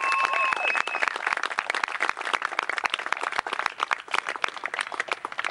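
Small crowd of spectators clapping and applauding, the clapping thinning out toward the end.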